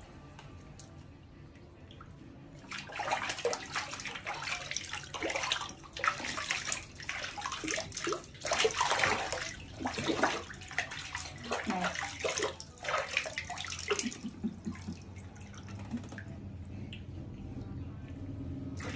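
Water splashing and sloshing in a large stainless steel basin while a baby monkey is washed in it by hand. It comes in irregular bursts starting a few seconds in and dies down a few seconds before the end.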